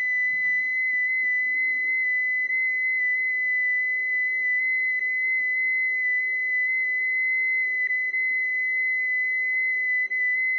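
FT8 digital-mode transmit tones playing from an Android tablet's speaker into a handheld radio microphone: one steady, high, whistle-like tone that moves in tiny pitch steps. This is an FT8 transmission sent through the Yaesu FT-857.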